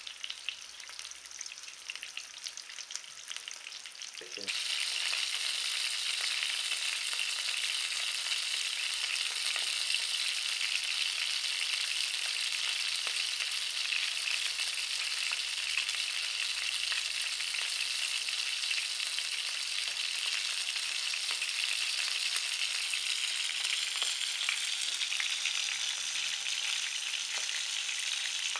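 Four sausages frying in oil in a frying pan: a dense, steady sizzle with fine crackling. About four seconds in it becomes abruptly louder and stays that way.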